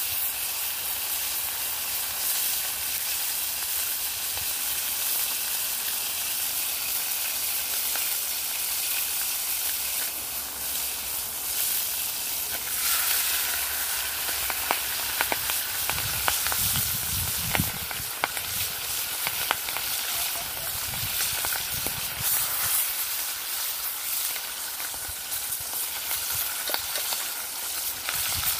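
Fish, mutton snapper, frying in hot oil in a black pot, a steady sizzle. From about halfway a metal spatula clicks and scrapes against the pot as the fish is worked.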